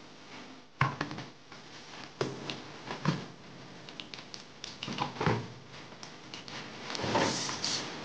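Cardboard toy packaging being handled and opened: irregular scraping and rubbing of cardboard with light knocks. A longer rustling scrape comes near the end as the boxed toy is slid out.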